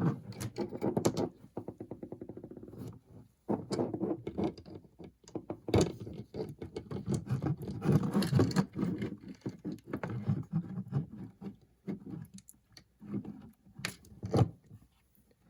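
Plastic parts of an opened Spektrum DX6i radio transmitter being handled and worked at by hand: scattered clicks, taps and scraping. There is a quick run of ticks about two seconds in, and a few sharper knocks later on.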